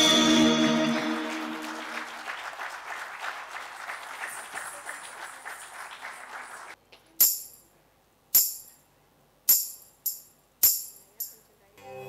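Recorded dance music fading out, leaving a quieter stretch of dense metallic jingling, then six sharp jingling metallic strikes, the first three about a second apart and the last three quicker, closing a Bharatanatyam piece.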